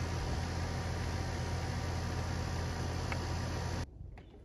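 Steady low electrical hum with a hiss over it, cutting off abruptly near the end to a much quieter background.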